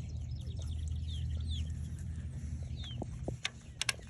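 Short, high, falling peeps of chicks, repeated over a steady low hum that drops away about three seconds in. A few sharp clicks come near the end.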